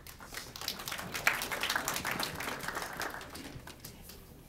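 Small audience clapping: scattered claps that build to a dense patch about a second in, then thin out and die away near the end.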